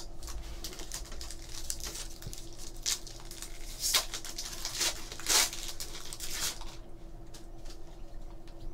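A foil trading-card pack being torn open by hand, the wrapper crinkling as the cards are pulled out, in a run of short rasps. The loudest tears come about four and five and a half seconds in.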